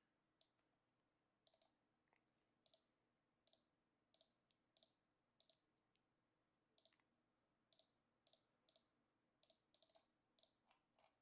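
Faint, irregular clicking of a computer mouse, about twenty clicks with some in quick pairs.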